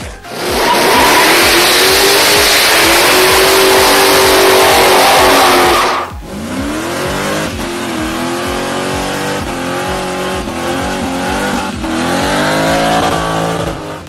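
Muscle-car engines at full throttle in two clips: first about six seconds of an engine held at high revs under a loud hiss, then, after a sudden cut, a supercharged muscle car doing a burnout, its engine revving up and down repeatedly as the rear tyres spin in smoke.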